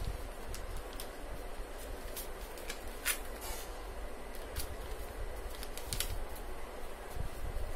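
A sheet of paper being folded and pressed flat by hand: scattered short crinkles and rustles, over a steady low background rumble.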